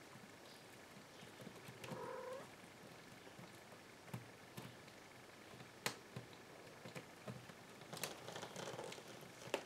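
Cats jostling over a wicker basket. A short, faint cat call comes about two seconds in and a longer one near the end, as the ginger kitten cries out, with scattered light knocks and clicks from the scuffle.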